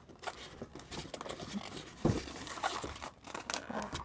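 Packaging being handled during unboxing: irregular crinkling and rustling with scattered small clicks as the mini sewing machine and its papers are taken out of the box.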